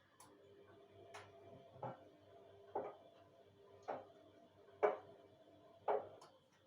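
Bosch washing machine just after the end of its spin: five knocks about a second apart over a faint steady hum.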